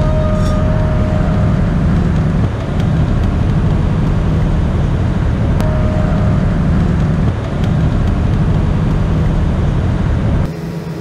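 Tour boat under way: its engine gives a loud, steady low rumble. A short faint tone sounds twice, near the start and about six seconds in, and the level drops suddenly near the end.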